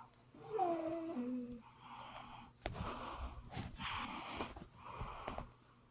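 A man's short closed-mouth hum, like an "mm-hmm" of agreement, falling in pitch. It is followed by soft breathy sounds and a couple of small knocks.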